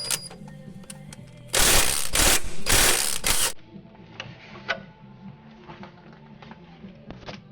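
A loud burst of mechanical rasping and clicking for about two seconds, in three pushes, over soft background music.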